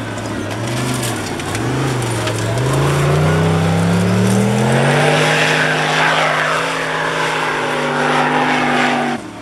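Formula Offroad hill-climb buggy's engine revved up and down twice, then rising to high revs and held there as the car claws up a sand slope. A hiss of spinning tyres throwing sand runs under it in the middle. The sound drops out briefly near the end.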